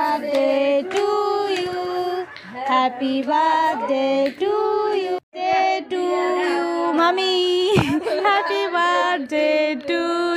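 Women and a child singing a birthday song together in held, sustained notes, broken by a sudden short gap about halfway through.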